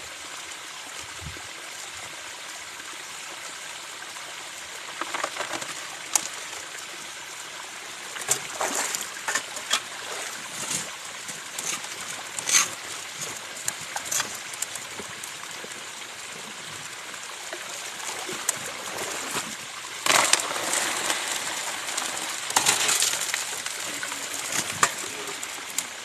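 Water running steadily through a hose-fed high-banker sluice box. Scattered clinks and knocks come and go over it, with a denser cluster about three-quarters of the way through.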